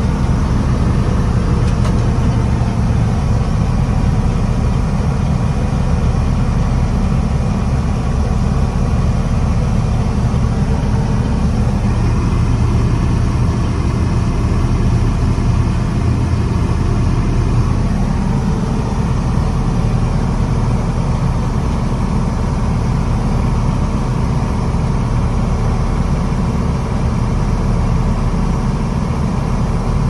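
John Deere 6600 combine running steadily under load while its unloading auger empties soybeans into a wagon, heard from inside the cab.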